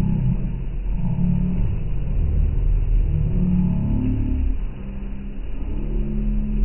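Engine of an amphibious tour bus running under way on the water, a steady low drone over the wash of its wake. It drops a little in loudness about four and a half seconds in.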